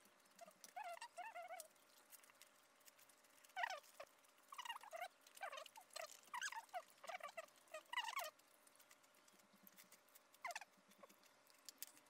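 A dog whimpering softly: runs of short, high, squeaky whines that mostly fall in pitch, in several clusters with gaps between.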